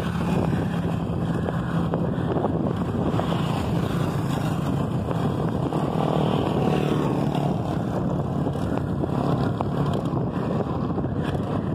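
Steady wind rush over the microphone of a camera riding on a moving bicycle, mixed with a low, even road hum.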